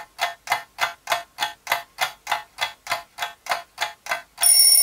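Evenly spaced ticking sound effect, about three quick ticks a second, like a clock. Near the end the ticking stops and a steady high electronic tone cuts in, the start of a music sting.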